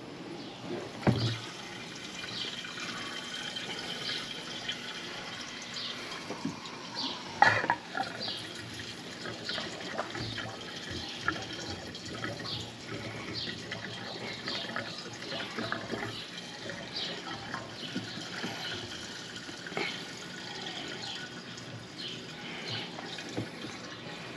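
Gasoline pouring from a plastic gas can's spout into an ATV's fuel tank, a steady trickling fill, with two louder knocks: one about a second in and a sharper one about seven seconds in.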